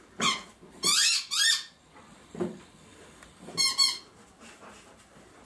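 A squeaky dog toy squeezed in short, high-pitched squeals: once near the start, twice in quick succession about a second in, and once more near the four-second mark.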